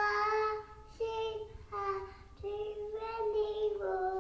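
A toddler singing a song: a string of held notes with short breaks between them.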